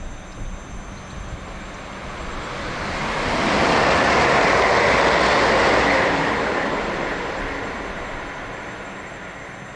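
An electric passenger train passing through the station at speed without stopping. Its noise swells, peaks a few seconds in, then fades away steadily.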